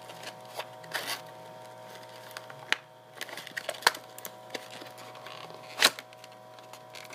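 A computer mouse's retail packaging being handled and pried at: scattered crackles and clicks, with a few sharp snaps, the loudest late on. A faint steady hum sits under it.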